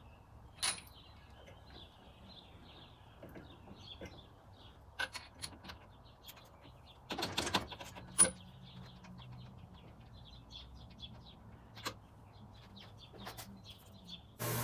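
Scattered light clicks and taps of small tools and metal parts being handled, over faint bird chirps in the background. A louder steady hum cuts in suddenly at the very end.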